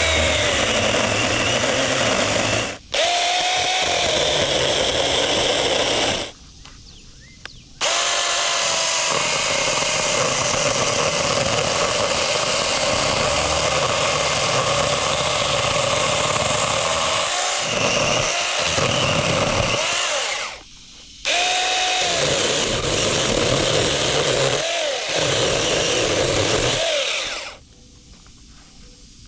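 Cordless mini chainsaw's electric motor whining as its chain cuts into a bush stump. The trigger is let go and squeezed again several times: the motor stops briefly three times and spins back up with a rising whine each time, then stops near the end.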